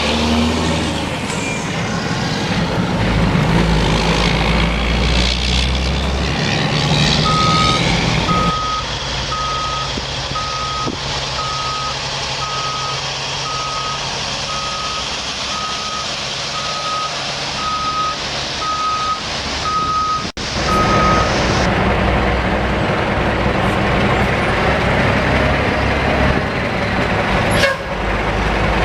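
Dump truck's diesel engine running while its backup alarm beeps at one steady pitch, a little faster than once a second, for about fourteen seconds through the middle.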